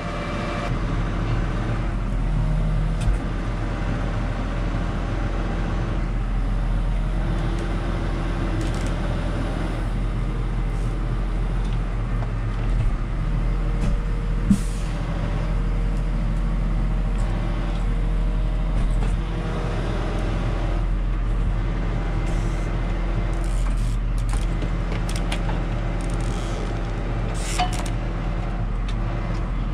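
Modern New Holland tractor's diesel engine running steadily, heard inside the cab as it drives and tows a dead tractor on a strap, with a few short knocks along the way.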